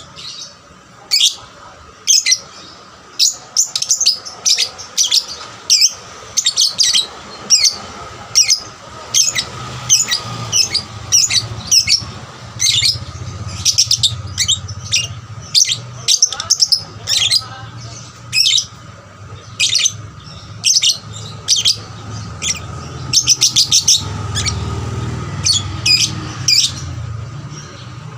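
Female lovebird calling busily: short, sharp, high chirps, often several a second and sometimes in rapid runs, over a low background hum.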